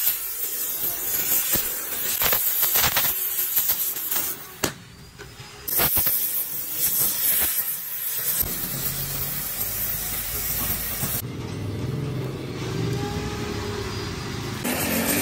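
Oxy-gas welding torch flame hissing against a cast iron engine block, with scattered crackling pops; a low rumble joins in during the second half.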